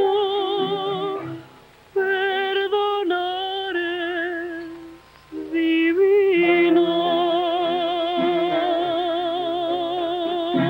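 A woman singing a bolero with a small band, her held notes carrying a wide vibrato. Two short phrases with brief pauses between them, then one long held note from about six seconds in, the closing climax of the song.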